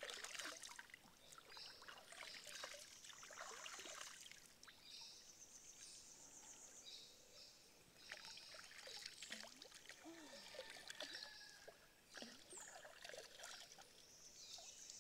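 Faint outdoor ambience: high-pitched insect trills that come and go, with scattered light clicks and rustles.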